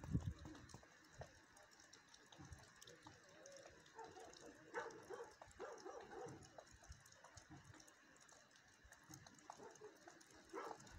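Faint, distant animal calls: a few short cries scattered through, with a low thump right at the start.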